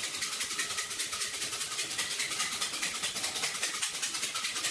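Cicadas buzzing in a loud, high-pitched chorus that pulses in rapid, even beats.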